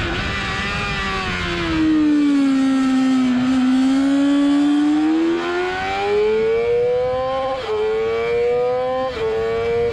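Sport motorcycle engine at speed: the revs fall as the bike brakes into a corner, hold low through it, then climb as it accelerates out, with two upshifts near the end, each a sudden drop in pitch. Wind rush underneath.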